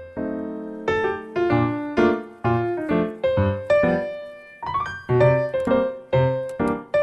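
Background piano music: chords and notes struck at an even pace, about two a second, each ringing and fading before the next.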